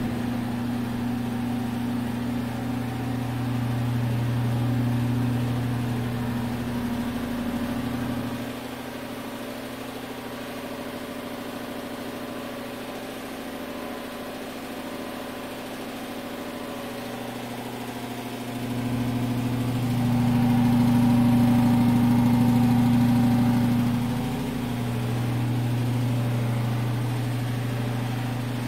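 Dayton blower exhaust fan behind an older Penn Zephyr ceiling grille, running with a loud, steady low hum. The deepest part of the hum drops away for about ten seconds in the middle, then comes back stronger.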